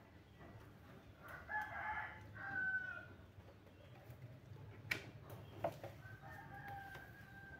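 A rooster crowing twice, once about a second in and again near the end, with two sharp clicks in between.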